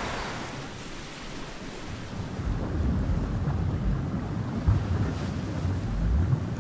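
Wind buffeting the microphone: a gusty low rumble that grows louder about two seconds in.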